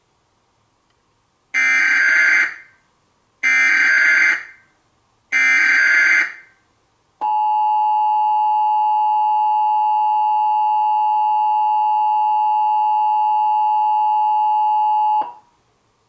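Emergency Alert System tones: three one-second bursts of SAME header data about two seconds apart, then the steady two-tone EAS attention signal held for about eight seconds before it cuts off. Together they open an emergency alert, here the nationwide EAS test.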